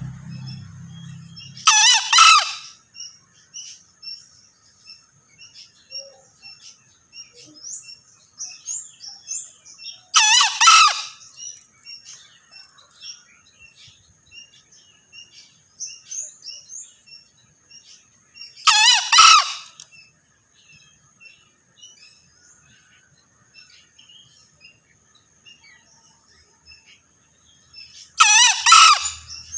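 Male green junglefowl crowing four times, about every eight to nine seconds, each crow a short two-part call of about a second, with faint small-bird chirps between the crows.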